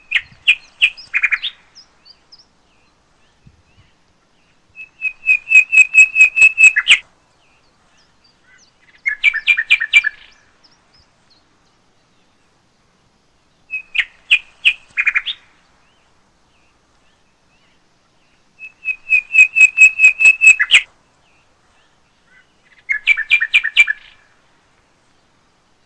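A bird singing in short phrases of rapid, evenly repeated chirps, each phrase one to two seconds long with pauses of a few seconds between; the same run of three phrases comes twice.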